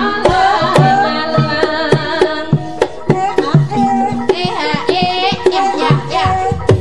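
Javanese gamelan music for the ebeg horse dance: regular kendang drum strokes under ringing metallophone tones, with a wavering melodic line over them.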